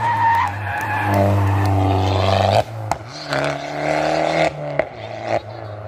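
Race car engine running at high revs with a steady note that breaks off sharply about two and a half seconds in. It comes back at a higher pitch, then drops back again just before five seconds.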